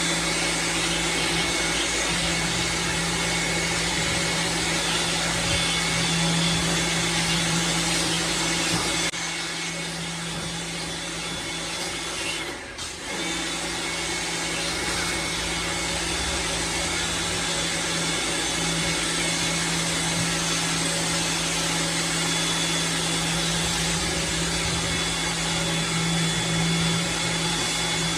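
Lavor Fast Plus 130 electric pressure washer running steadily, its motor and pump humming under a hiss of spraying water. The sound drops a little about nine seconds in and dips briefly a few seconds later before running on.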